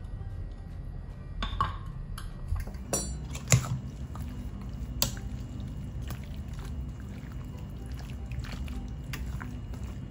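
A metal spoon clinking and scraping against a stainless steel bowl while wet, spice-coated raw chicken pieces are stirred and turned, a string of irregular clinks with two louder knocks about three and a half and five seconds in.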